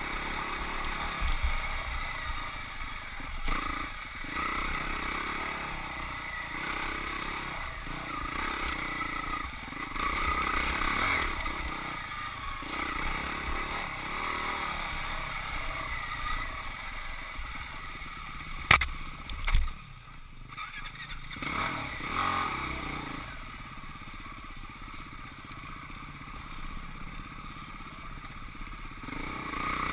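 Husqvarna 449 dirt bike's single-cylinder engine running and revving up and down as it is ridden, with clattering over rough ground. Two sharp knocks come a little past halfway, then the engine goes quiet for a moment before running on lower and steadier.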